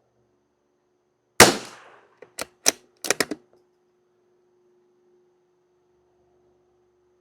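A single shot from a Savage Mark II FV .22 LR bolt-action rifle firing CCI Standard Velocity ammunition, followed within a second by a quick run of metallic clicks as the bolt is worked.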